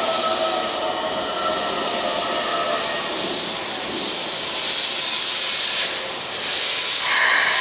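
Keikyu 600 series electric train coming to a stop at a platform. A whining tone from its running gear dies away over the first few seconds as it slows. A loud, steady hiss then sets in, dips briefly and resumes, with a short tone near the end.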